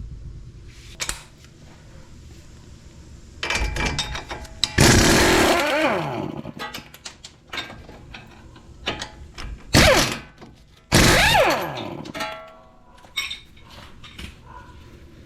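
A power tool run in short bursts, two longer ones and a brief one between, its motor pitch falling away as it spins down after each, while fasteners are taken off a car's front hub assembly.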